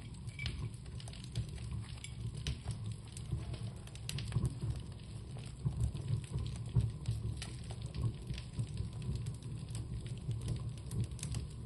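Small ritual fire crackling as a rag item burns, with irregular sharp pops over a low, steady rush of flame.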